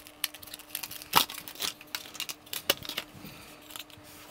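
Hands handling a clear plastic cover, a 2.5-inch SSD and a metal drive bracket: irregular sharp clicks and taps with plastic crinkling, loudest a little over a second in.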